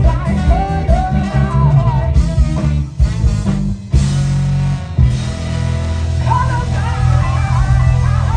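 Live band playing: bass and drums under guitar, with a wavering melodic lead line on top. About three seconds in the band drops back briefly, then comes in again with a sharp hit.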